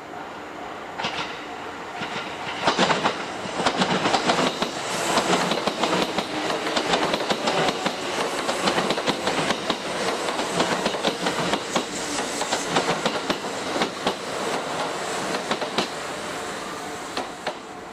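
Electric train running through a station, its wheels clattering rapidly over rail joints and points; the clatter builds about two and a half seconds in and dies away near the end.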